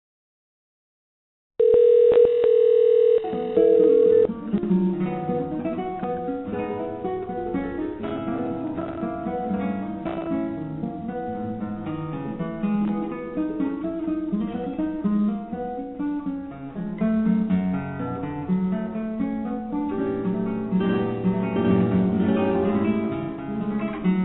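Phone line silent at first, then a steady single tone for about two and a half seconds, then acoustic guitar hold music in a flamenco-like style heard through the narrow, thin sound of a telephone line.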